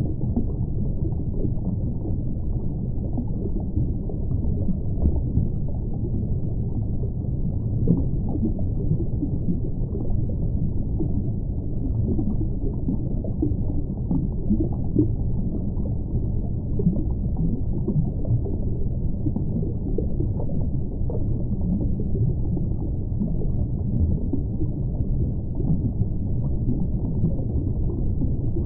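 Steady, muffled underwater rumble of water noise, with faint scattered crackles.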